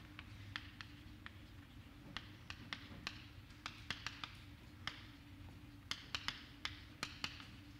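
Chalk writing on a blackboard: a quick, irregular string of light taps as the chalk strikes the slate, with soft scratching between them.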